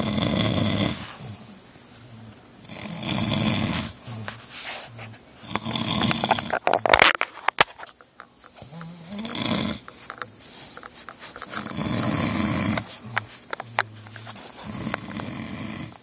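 A man snoring loudly in his sleep, one snore about every two to three seconds. The snore about halfway through breaks into a run of clicks.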